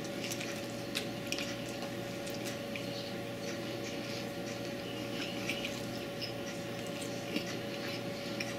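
A man chewing a mouthful of hamburger, with scattered short, wet mouth clicks, over a steady electrical hum.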